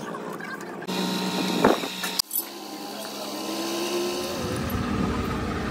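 Workshop noise from metal tools working on a truck differential's ring gear and housing, broken into short clips that cut off abruptly. There is a sharp metal knock about a second and a half in.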